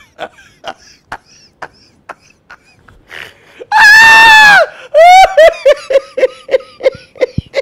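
A man laughing uncontrollably: short breathy gasps at first, then a long, high, shrieking laugh about four seconds in, followed by a quick run of short 'ha' laughs.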